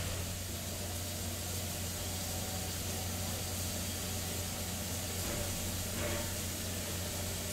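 Reading T-1 class 4-8-4 steam locomotive giving off a steady hiss of steam over an even low hum, with a brief swell of hiss about six seconds in.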